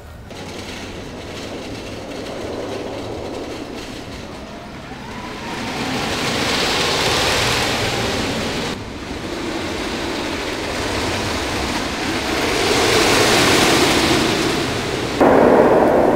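A wooden roller coaster's train running along its track, the noise building to a peak as it passes. Partway through, the sound breaks off suddenly and then builds again.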